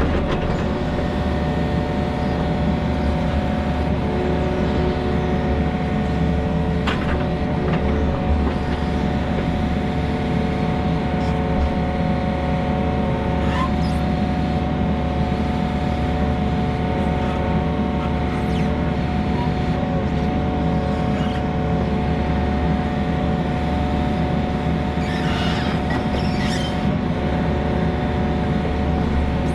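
Heavy-equipment engine running steadily at a constant speed, with a few faint clicks and knocks over it.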